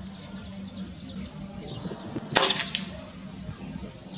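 Spring-piston air rifle (.177 Cometa New Fenix) firing a single shot about two and a half seconds in, a short sharp crack. About a third of a second later comes a fainter second click, the pellet striking the metal silhouette target.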